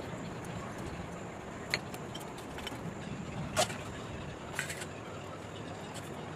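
A few light clinks and knocks as a brass plate and a steel bowl are handled on a countertop, over a steady low background rumble.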